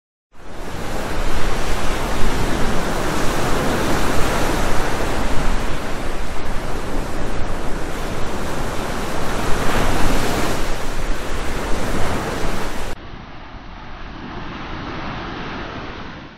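Loud rushing of surf and wind. About 13 seconds in it cuts abruptly to a quieter, duller rush that fades out at the end.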